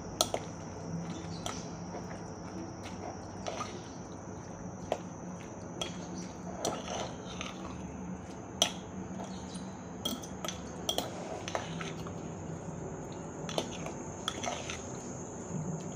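A fork clicking and scraping against the inside of a bowl while tuna spread is stirred and mixed, in irregular taps a second or so apart.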